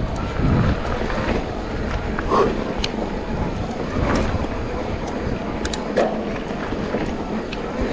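Mountain bike rolling down a dirt trail: steady tyre and ride noise with scattered clicks and rattles from the bike.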